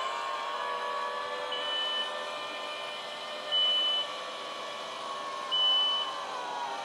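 DJI Dock 2's lid motors whining steadily as the two hinged lids swing open to the sides, the whine falling away near the end as they finish. A short, high warning beep sounds three times, about two seconds apart.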